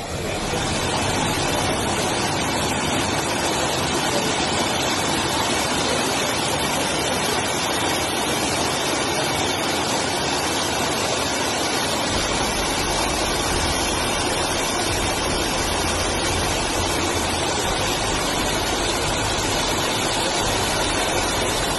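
Floodwater rushing over a submerged causeway: a steady, loud rush of water, with the low rumble growing stronger about halfway through.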